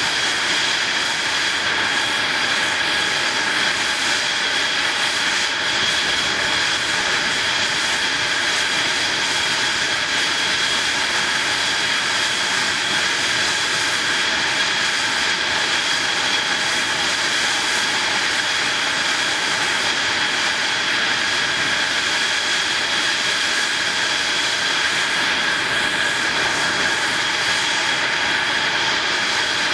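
F-16 Fighting Falcon's turbofan engine running at a steady power setting during a ground engine run, the jet anchored to a trim pad. A steady rushing jet noise with a high whine that holds one pitch.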